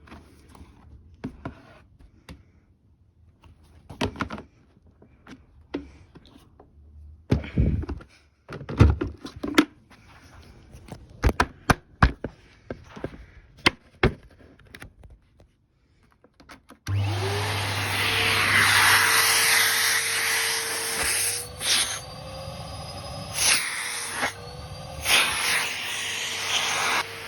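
Scattered knocks and clicks, then about 17 seconds in a Numatic NRV240-11 tub vacuum cleaner is switched on: its motor spins up with a rising whine and runs steadily, the sound changing briefly a few times near the end.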